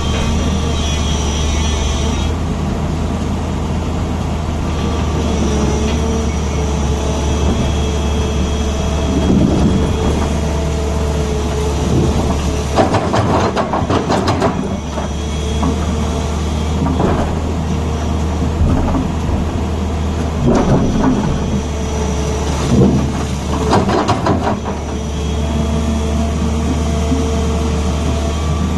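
Tata Hitachi excavator's diesel engine running steadily, with a few thin whining tones over it, and several short spells of knocking and rattling around the middle and later on.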